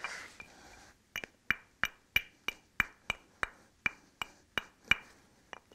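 Antler billet tapping lightly and repeatedly on the edge of a chert core, about three taps a second, each a sharp click with a short ring.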